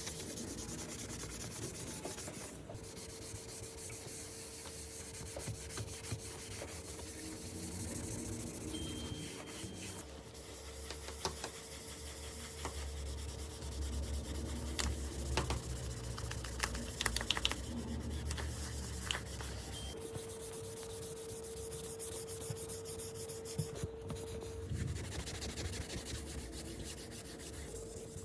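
Steady rubbing and scraping, with scattered light clicks and a faint steady hum.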